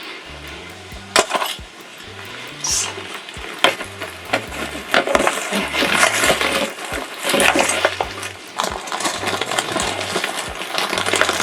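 Rummaging through stored items: irregular clinks, knocks and rattles as things are moved about while someone searches for mosquito spray, over quiet background music with a steady bass line.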